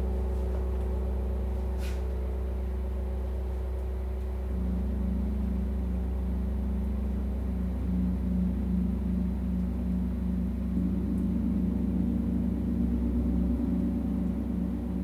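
Low sustained droning tones of a sound-healing concert, held steady, with a pulsing beat about twice a second that sets in about four and a half seconds in and swells a little louder.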